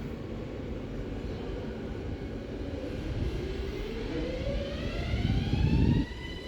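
Electric train pulling away: the traction motors' whine rises in pitch as it accelerates, then holds a steady multi-note tone, over the rumble of the wheels on the rails. The rumble builds and drops off sharply about six seconds in.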